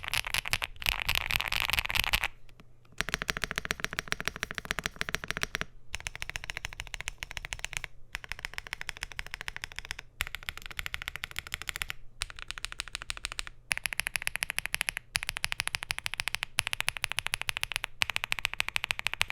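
Fast typing on a Bridge75 Plus mechanical keyboard with SC linear switches, PBT Cherry-profile keycaps, an FR4 plate and an aluminium gasket-mount case: a dense stream of keystrokes broken by short pauses every couple of seconds. The first two seconds are louder.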